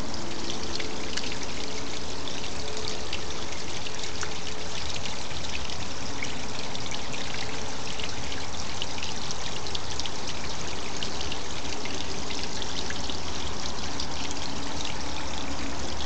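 Small waterfall trickling and splashing over rocks: a steady rush of falling water with many fine droplet splashes.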